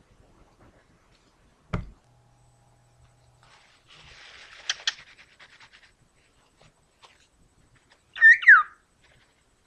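Pet bird giving a couple of short whistles that slide downward, near the end. Earlier there is a single knock about two seconds in and a brief rustle with a few clicks.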